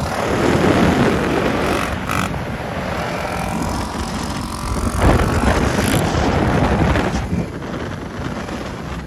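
Wind rushing over the microphone of a moving vehicle, with the rumble of travel over a rough dirt track.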